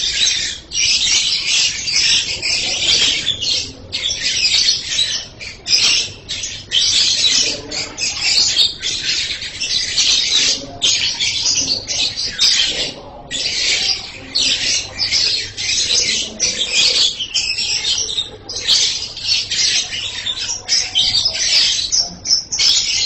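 Lovebird singing a long, shrill, rapid chattering song, broken by short pauses every second or two.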